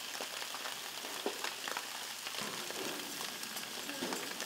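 Food sizzling on a commercial kitchen range: a steady crackle with scattered light clicks of utensils.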